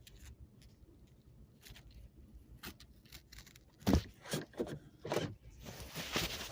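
Seat belt cutter being handled and drawn through seat belt webbing: a few sharp knocks about four seconds in, then a rasping, tearing scrape near the end.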